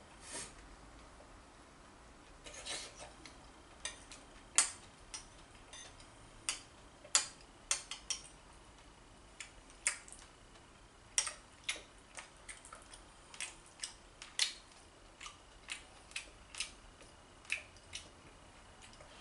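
Metal spoon clinking and scraping against a ceramic plate while curry rice is eaten from it: scattered, irregular sharp clinks, a few close together at times, over a quiet room.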